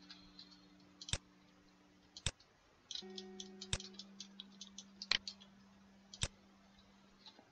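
Computer mouse clicking: five sharp single clicks spaced about a second apart, with a run of lighter, quicker clicks from about three to five and a half seconds in.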